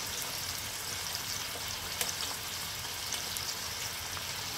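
Chicken thigh frying in sesame oil in a frying pan: a steady sizzle with a few small pops.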